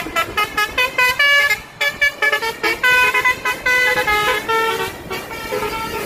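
Telolet basuri multi-tone musical air horn on a Jetbus coach, playing a quick melody of short notes that change pitch several times a second as the bus passes.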